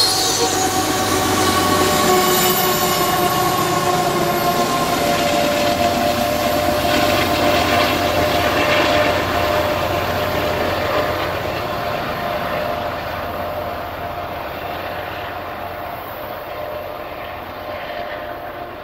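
Loaded coal train rolling past: hopper car wheels rumbling on the rails along with the diesel locomotives, with a steady whining tone over the rumble. The sound fades from about two-thirds of the way in as the train moves away.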